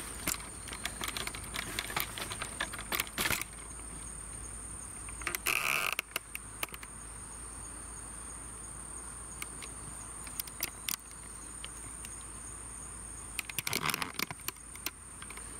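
Insects chirring in one steady high pitch, with crackling rustles of dry leaves and twigs underfoot in bursts in the first few seconds, about five and a half seconds in, and again near the end.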